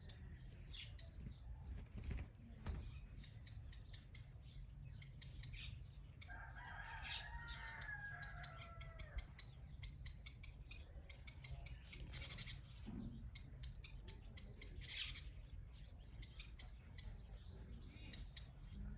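Small birds chirping rapidly, with a longer, lower call of about three seconds some six seconds in. A steady low rumble runs underneath.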